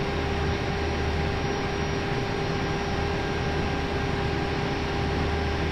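Airbus A320 flight-deck noise on final approach: a steady rushing noise with a low hum and a faint constant tone underneath.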